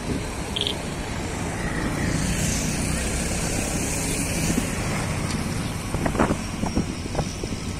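Twin WDG4 diesel locomotives, EMD 16-cylinder two-stroke engines, running steadily as the freight train approaches: a low rumble, with a few sharp clicks about six seconds in.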